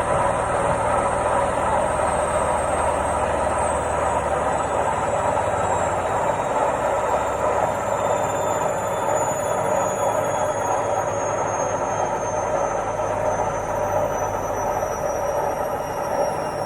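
Washing machine on its spin cycle: a steady rushing mechanical hum with a faint high whine that slowly falls in pitch.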